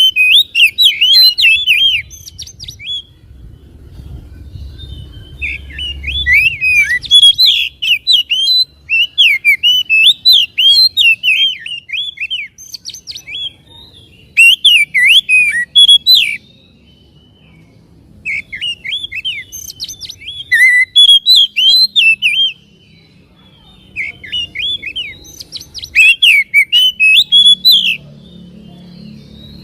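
Oriental magpie-robin (kacer) singing: loud phrases of fast, varied chirping notes, each phrase a few seconds long, separated by short pauses.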